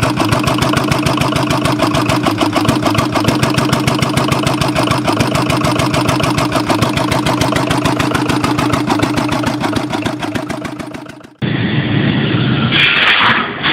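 An old engine running with a rapid, even firing beat. About eleven seconds in it fades away, and a different recording starts abruptly.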